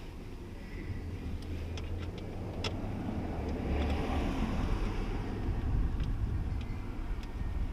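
A vehicle passing: a low rumble builds to a peak about four seconds in and then eases off, with a few faint clicks.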